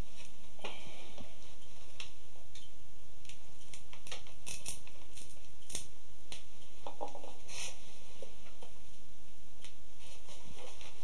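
A wet split-root strand being pulled through and stitched around the coils of a split-pine basket, giving scattered small crackles, creaks and rustles of the wood strips rubbing against each other.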